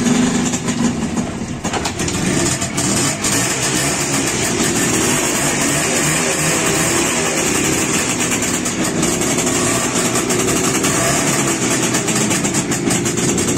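Minsk single-cylinder two-stroke motorcycle engine starting at the very beginning and then running steadily, close by.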